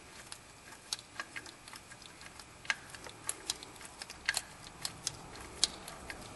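Hand ratchet clicking in irregular sharp ticks, a few a second, as it runs in the mounting bolts of a new serpentine belt tensioner.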